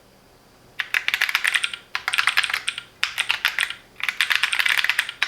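Keychron Q6 Max full-size metal mechanical keyboard with Gateron Jupiter Banana switches being typed on in fast runs of keystrokes. The typing starts almost a second in and comes in four bursts of about a second each, with short pauses between them.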